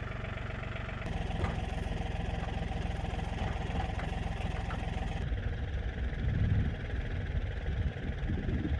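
An engine or motor running steadily, its sound changing about five seconds in.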